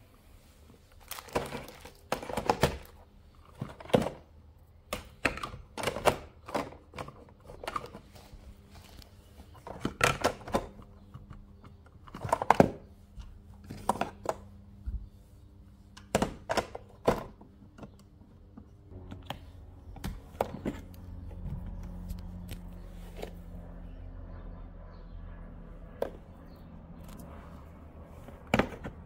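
Kitchenware being handled and set down on a hard surface: an irregular run of knocks, clicks and light clatters, with a low steady hum for a few seconds past the middle.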